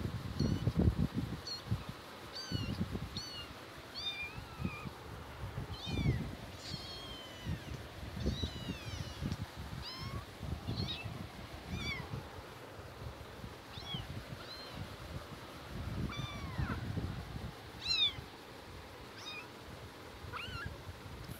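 Kittens mewing over and over in short, high-pitched mews that drop in pitch. Soft low thumps and scuffs run underneath as they bat a pencil around on a concrete floor.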